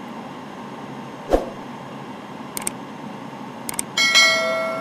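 Steady rush of cockpit noise on a Boeing 787 just after touchdown, with a single thump about a second in. Near the end come a couple of clicks and then a ringing bell chime that fades, the sound effect of a subscribe-button animation.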